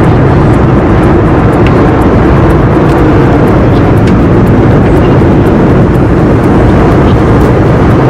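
Airliner cabin noise in flight: the steady, loud, even rush of the engines and airflow.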